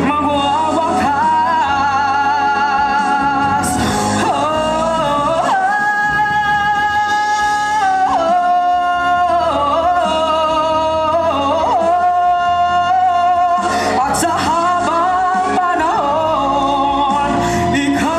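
A man singing solo through a microphone over instrumental accompaniment, holding long notes of a couple of seconds each.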